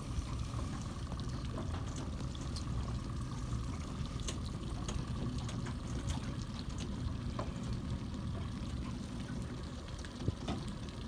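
Water sloshing and lapping against a boat's hull over a steady low rumble, with scattered small clicks.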